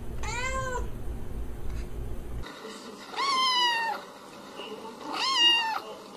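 A cat meowing three times, each meow rising and then falling in pitch: a short one near the start, then two longer ones. A low hum behind the first meow stops suddenly about two and a half seconds in.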